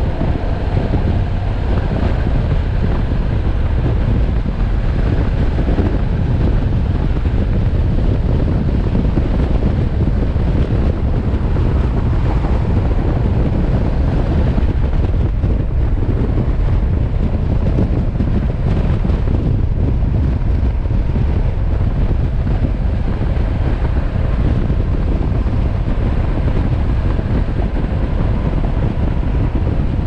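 Wind noise on the microphone of a moving motorcycle, with the engine and road noise under it; loud and steady throughout.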